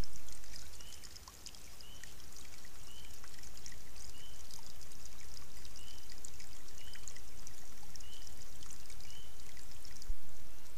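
Water trickling and pouring through a beaver dam, a steady crackly hiss full of small ticks. A short high call repeats about once a second over it.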